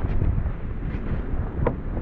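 Strong, gusty wind buffeting the microphone, mostly a low rumble.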